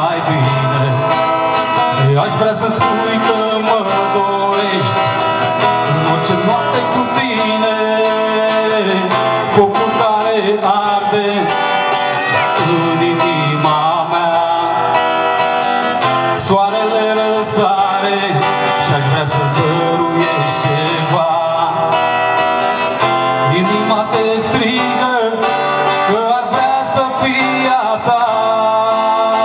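Live song: a man singing into a microphone while strumming an acoustic guitar, amplified through a stage PA.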